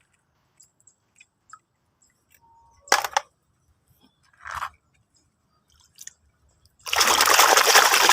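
A few faint clicks and a short knock as toys are handled, then near the end water starts running loudly and steadily, rinsing the toy cars.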